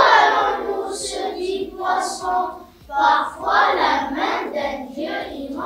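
A class of young children reciting a French poem together in unison, their voices chanting in rhythmic phrases with short pauses between them.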